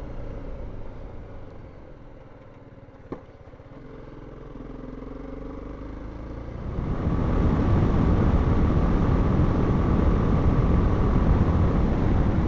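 BMW G310GS single-cylinder motorcycle running on the road, engine with wind and road noise. There is a single click about three seconds in, and the sound gets louder and more rushing about seven seconds in.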